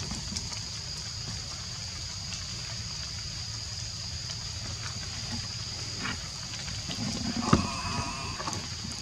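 Forest ambience with a steady high-pitched insect drone over a low rumble. About seven seconds in comes a short pitched call with a sharp knock in the middle of it.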